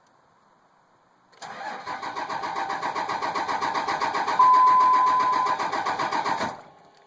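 A 5.9 24-valve Cummins diesel in a 2003 Dodge Ram being cranked by its starter for about five seconds in a fast, even pulsing rhythm. It does not fire, and the cranking cuts off abruptly. A steady high tone sounds for about a second midway. This is the cold long-start problem, which the owner thinks could be the injectors.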